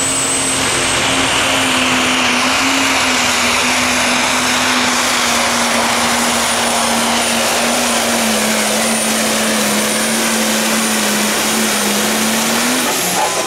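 Case IH pro stock pulling tractor's turbocharged diesel engine running flat out under load through its run. A steady high turbo whistle sits over the engine roar. The engine note sags a little late in the run and drops away near the end.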